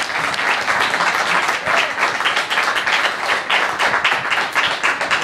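Audience applauding, a dense patter of many hands clapping.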